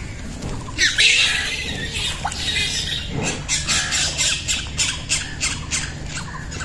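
Harsh squawking animal calls: one loud call about a second in, then a quick run of short squawks, about three a second, from about three seconds in.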